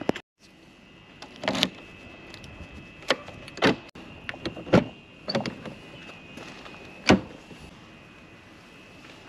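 Clunks and clicks from a 1992 BMW 7 Series (E32)'s doors and fittings being worked, about eight separate knocks over a steady high-pitched tone.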